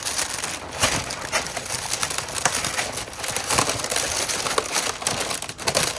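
Packaging crinkling and rustling as the contents of an airsoft rifle's box are handled and unwrapped, with many small clicks and knocks.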